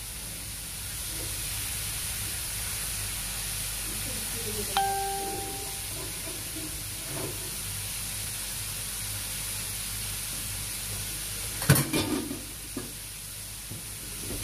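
Flour-coated fish frying in hot oil in a pan on a gas burner, a steady sizzle. About five seconds in a metal utensil gives a short ringing clink, and a sharp clatter near twelve seconds is the loudest sound.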